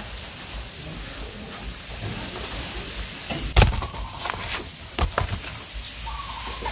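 Bamboo shoots being cut and handled: one loud thud about halfway through, then several lighter knocks and clicks.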